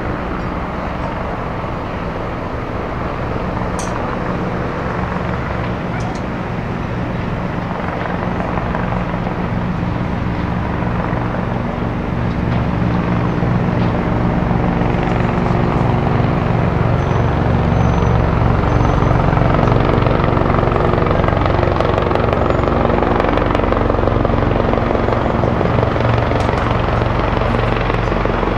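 Helicopter flying overhead: a steady pulsing rotor beat that grows louder toward the middle of the stretch and stays loud.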